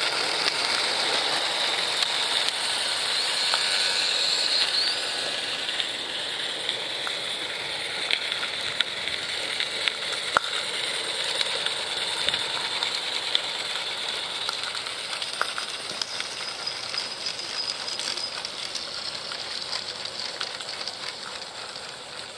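Catatonk live-steam Shay locomotive model running, a steady hiss of steam with a scatter of light clicks and ticks from its running gear. It grows gradually quieter toward the end.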